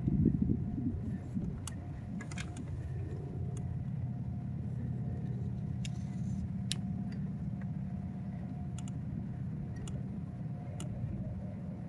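A steady low mechanical hum with a thin, steady whine above it and a few light, scattered clicks; slightly louder in the first second.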